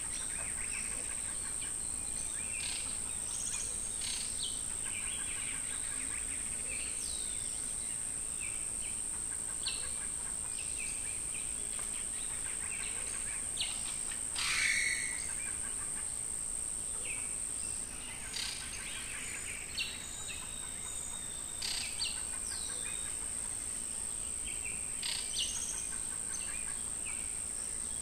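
Insects keeping up a steady high-pitched drone, with several birds calling over it in short chirps and whistles. One call about halfway through is louder than the rest.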